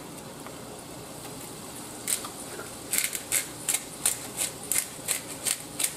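McCormick black peppercorn grinder being twisted by hand, cracking whole peppercorns: a few strokes about two seconds in, then an even run of short grinding clicks about three a second.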